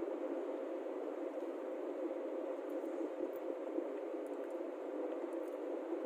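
Steady rushing road and wind noise from a vehicle cruising along a paved highway, even throughout with no distinct events.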